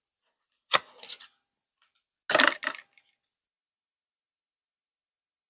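Eyeshadow palettes being handled: two short bursts of hard clicks and clatter, one about a second in and a louder one around two and a half seconds in.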